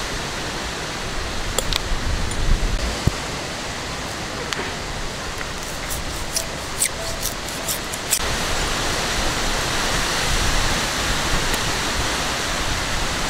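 Steady rushing wind noise with low rumbles of wind on the microphone. A handful of short sharp ticks sound through the middle as a sickle blade cuts into a banana stem.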